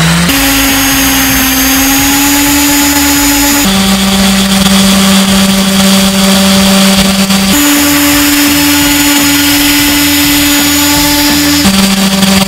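Makita random orbital sander running on a cured epoxy and wood surface: a steady motor hum with the hiss of the sanding pad. The hum shifts between a higher and a lower pitch every few seconds.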